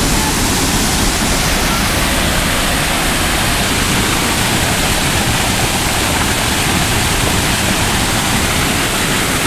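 Waterfall rushing and splashing over rocks close by: a loud, steady rush of water.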